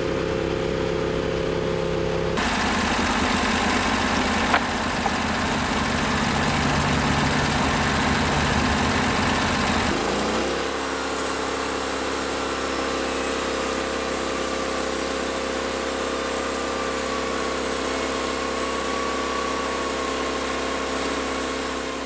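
Norwood LumberPro HD36 portable bandsaw mill running steadily as its blade cuts through a squared log. The sound changes character about two seconds in, and around ten seconds in the engine note rises briefly, then settles to a steady run.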